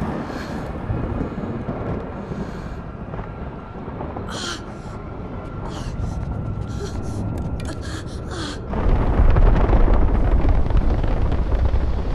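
Film sound mix: scattered short gasps and breathy cries over a thin, steady high tone, then a deep rumble swells in suddenly about nine seconds in and stays loud.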